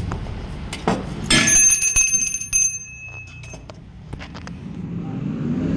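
Small brass hand bell (puja bell) struck once, ringing with a clear high metallic tone for about a second and a half before dying away, after a few light knocks of handling.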